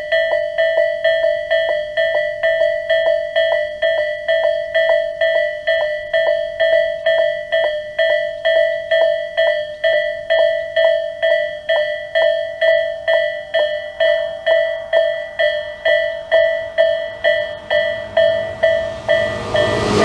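Tobu 'sound A' electronic level-crossing bell ringing steadily at about two strikes a second, signalling that a train is due. Over the last few seconds a Tobu 6050-series local train grows louder as it approaches the crossing.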